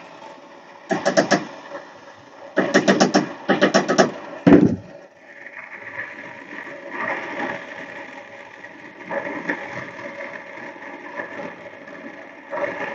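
Brazing torch flame running steadily at a copper joint, a noisy hiss. In the first few seconds it is broken by four short bursts of rapid rattling.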